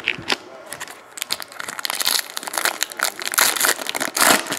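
Foil wrapper of a basketball trading-card pack crinkling loudly as hands tear it open and handle it, in a run of crackles that grows louder in the second half.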